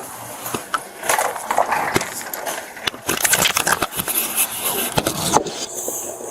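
Handling noise: rustling, with scattered clicks and knocks, busiest in the middle stretch, as clothing and belongings are moved about close to the microphone.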